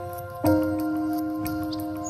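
Soft background music: held chords, a new one struck about half a second in and left to ring.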